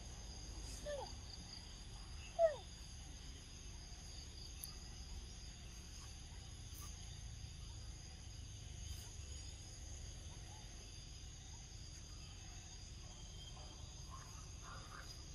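Steady high-pitched insect chorus. Two short falling squeaks sound about one and two and a half seconds in, the second the loudest.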